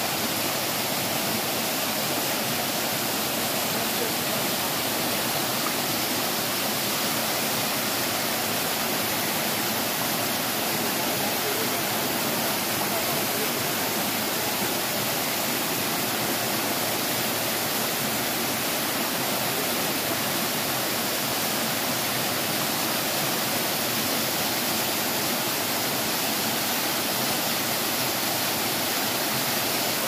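Water of a small waterfall and rocky stream cascading over rocks: a steady, unbroken rush.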